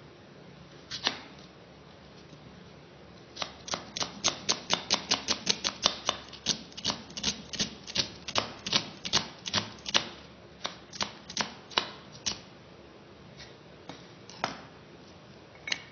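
Kitchen knife slicing a red onion against a wooden block: one cut about a second in, then a fast run of sharp taps, about three a second, for some nine seconds, and a couple more near the end.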